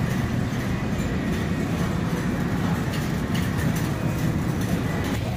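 Shopping cart rolling and rattling across a store floor: a steady rumble with a low hum under it.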